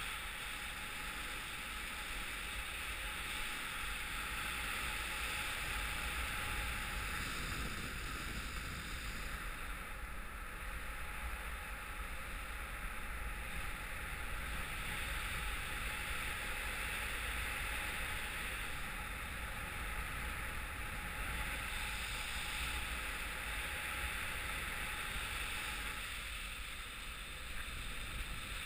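Airflow of a paraglider in flight rushing over the microphone: an even, unbroken hiss with a low rumble beneath.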